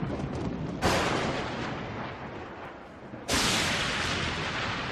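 Intro-animation sound effects: two sudden booming crashes of noise, one about a second in and another past three seconds, each fading out slowly over a low rumble.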